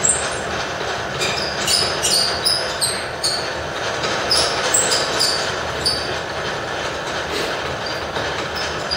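Milling machine face-milling the end of an aluminium block with a 1.5-inch insert face mill: a steady cutting noise with short high-pitched squeals from the inserts repeating about every half second.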